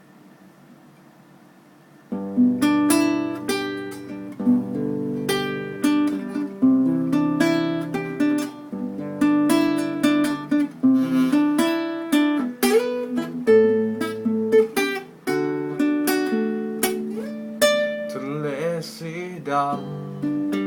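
Instrumental song intro of plucked acoustic guitar notes and chords, starting suddenly about two seconds in after a faint hum.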